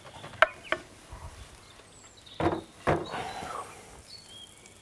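Light clicks, then two louder short knocks about half a second apart, as a wooden cutting board and utensils are handled at a grill; faint bird chirps near the end.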